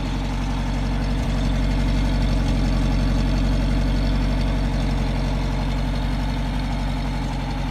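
1961 Mercedes-Benz 190SL's 1.9-litre four-cylinder engine idling steadily, its exhaust note heard right at the chrome tailpipe.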